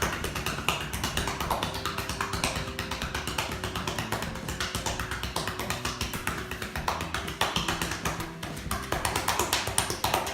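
Cupped palms patting rapidly and evenly on bare skin of the back: the cupping percussion stroke of a cough massage, each cupped hand trapping a cushion of air to send vibration into the chest. Background music plays underneath.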